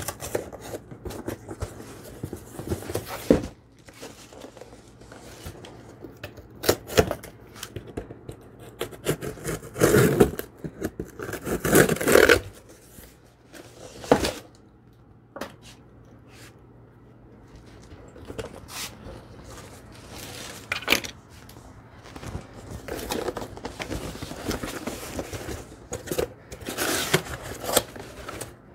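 A knife blade scraping and slicing through the packing tape of a cardboard box, then the cardboard flaps being pulled and torn open in loud bursts. Near the end, crinkle-cut paper packing rustles as hands reach into it.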